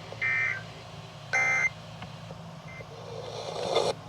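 Emergency Alert System end-of-message data bursts from a weather radio: short two-tone warbling screeches, each about a third of a second long and about a second apart, the last one faint. They mark the close of the alert. A rising hiss follows near the end.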